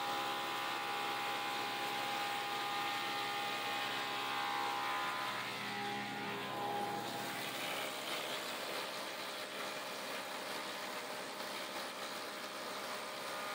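Planer-molder and its dust collector running steadily, a constant machine whine with a hum beneath, as a pine board feeds through the cutterhead to be milled into shiplap.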